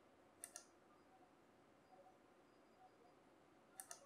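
Mostly near silence, broken by two quick pairs of faint sharp clicks, about half a second in and again near the end, from a small screwdriver and the plastic parts of a scale-model kit being handled.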